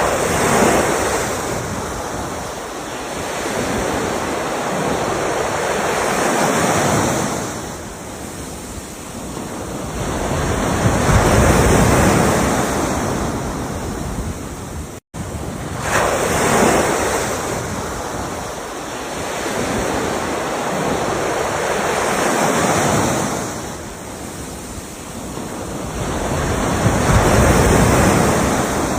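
Ocean waves breaking and washing ashore in slow swells, about one every five seconds, with a split-second break in the sound about fifteen seconds in.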